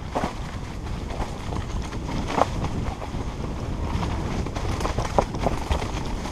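Wind rumbling on a helmet-mounted camera microphone as a mountain bike rolls fast down a rough forest trail. Scattered sharp knocks and rattles come from the bike hitting bumps, the clearest about two and a half seconds in and twice near five seconds.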